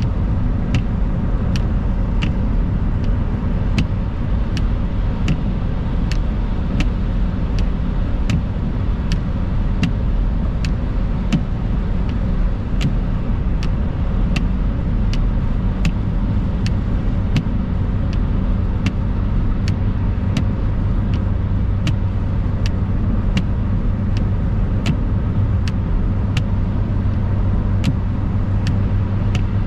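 Steady low rumble of a car's tyres and engine, heard from inside the cabin while cruising on a wet road. A light click repeats evenly a little more than once a second in time with the windscreen wipers sweeping.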